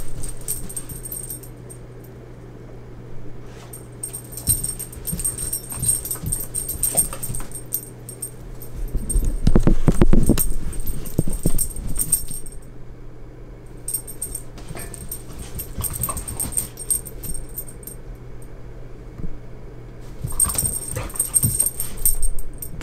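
A worked-up pet dog whimpering and moving about, with a burst of louder knocks and scuffles around the middle.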